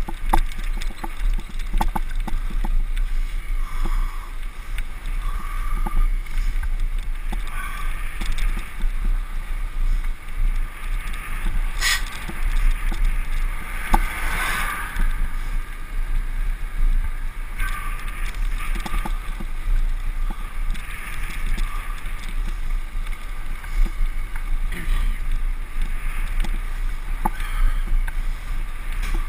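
Wind buffeting the microphone of an action camera on a moving bicycle, with tyre noise on tarmac and small rattles. A sharp knock comes about twelve seconds in.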